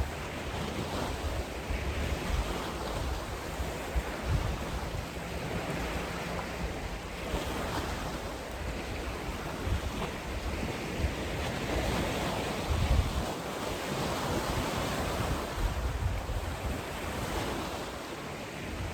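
Wind buffeting the microphone in uneven gusts over a steady rush of small lake waves.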